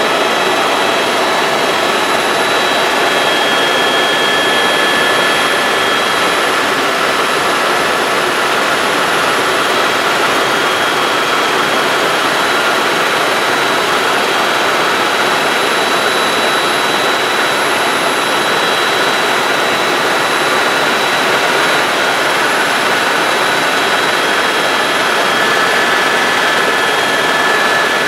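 Helicopter in flight, heard from the passenger cabin: a steady loud rush of rotor and turbine noise with several thin, high, steady whines over it.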